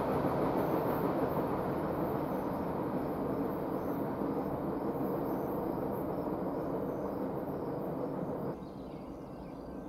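Freight train rolling by, its steady rumble slowly fading, with insects chirping high and faint above it. About eight and a half seconds in the rumble drops away suddenly to a quieter background.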